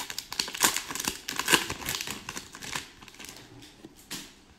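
Foil wrapper of an Upper Deck hockey card pack crinkling and crackling as it is handled and torn open. The crackling is busy for the first few seconds, then thins out, with one last crackle near the end.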